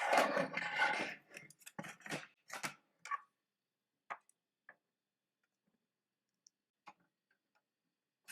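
Scattered light metallic clicks and taps, about nine at uneven intervals, from a small crosshead screwdriver and screws against the metal chassis of a DVR as a hard drive is screwed into place. There is a short burst of handling noise at the start.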